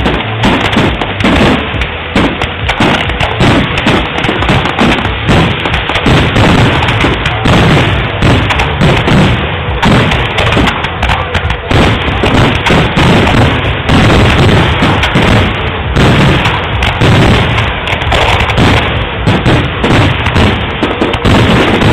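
Dense barrage of aerial firework shells bursting, loud booms and bangs following one another several times a second without a break, recorded through a mobile phone's microphone.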